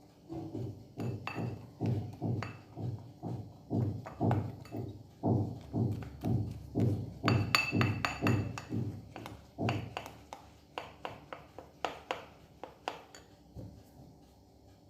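A utensil stirring a homemade hair-dye mixture in a bowl, knocking against the bowl about twice a second in a steady rhythm that thins out and stops near the end.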